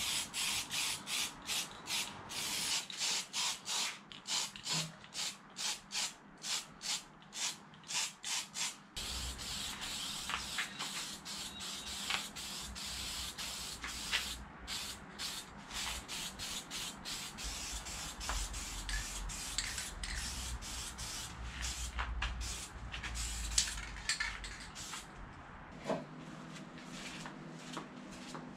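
Aerosol spray-paint can shaken, its mixing ball rattling about twice a second, then paint sprayed from the can in a run of short and longer hisses from about nine seconds in.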